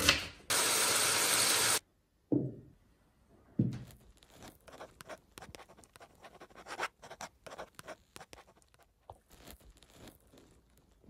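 A loud noise that cuts off suddenly, then two deep hits falling in pitch about a second apart, followed by a long run of dry, scratchy strokes like a pen scribbling quickly: a logo-reveal sound effect for handwritten text.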